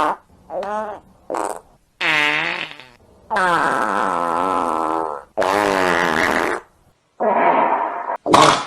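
A run of about seven fart sound effects, one after another: short pitched toots and longer drawn-out ones that wobble in pitch. The last two, near the end, are rougher and noisier, without a clear pitch.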